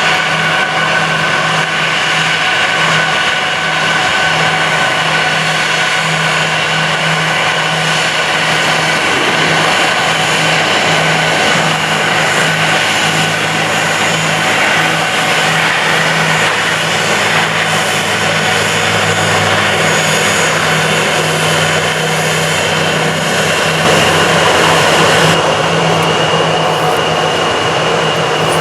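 Jet airliner engines running with a steady whine over a loud rush, the pitch holding level for most of the time and shifting slightly about 25 seconds in.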